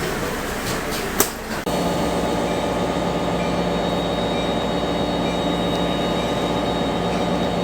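Inside a commuter train passenger car: a rattling rumble with a few sharp clicks, then, about two seconds in, an abrupt change to a steady hum with a constant low drone.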